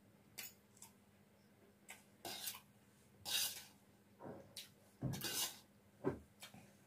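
Metal spoon scraping and scooping fried rice on a stainless steel plate: a string of short scrapes and clinks with pauses between them.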